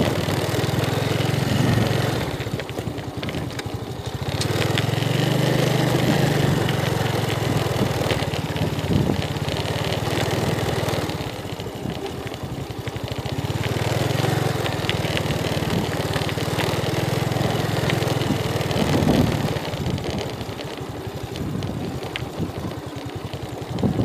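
Motorcycle engine running at low speed on a rough dirt track, the throttle opening and easing off several times so the engine note rises and falls.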